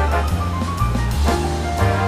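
Background music with a steady drum beat, about two beats a second, over a held bass line.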